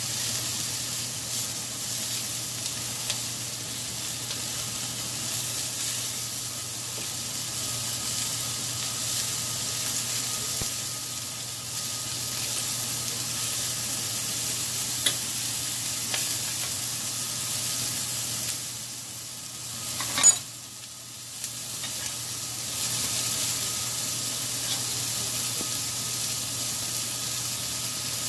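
French toast and sausages sizzling steadily on a hot flat-top griddle. About two-thirds of the way through, the sizzling briefly drops and there is a single sharp clack.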